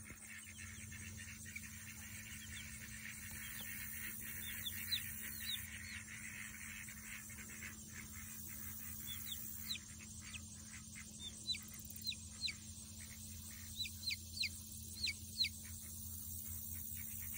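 Young chicks peeping: scattered short, high chirps that come more often in the second half, over a faint steady background.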